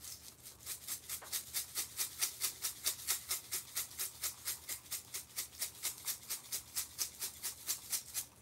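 A plastic spice shaker of dried minced onion shaken hard and fast, the flakes rattling out through its sifter lid at about five shakes a second.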